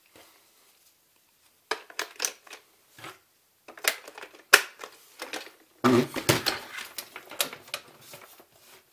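Irregular sharp clicks and knocks in small clusters, with a denser, louder stretch of clattering about six seconds in.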